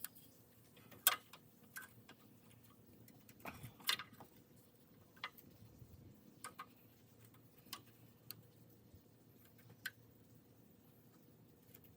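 Scattered light clicks and taps, about a dozen, irregularly spaced over a quiet background, the sharpest about a second in and near four seconds in.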